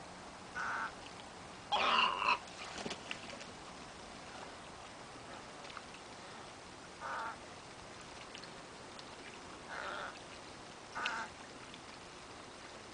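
Short, hoarse croaking calls from the wading birds of a mixed flock of egrets and white ibises, about five of them spread out with long gaps. The loudest and longest comes about two seconds in.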